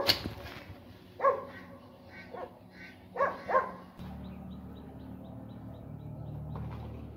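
A dog barking about five times in quick, uneven succession. About four seconds in the barking stops and a steady low hum comes in, with a brief quick run of faint high ticks.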